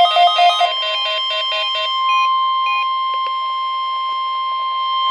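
Rapid electronic alarm beeping stops under a second in, followed by a short choppy run of tones. From about two seconds in comes one steady, unbroken tone: the NOAA Weather Radio 1050 Hz warning alarm tone, sent for the required weekly test.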